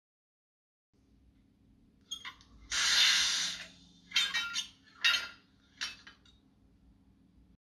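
Sound decoder of a Minitrix N-scale SNCF BB 9200 electric locomotive model playing one of its operating-sound effects through the model's small loudspeaker: a low steady hum, with a long hiss and then three shorter hisses over it.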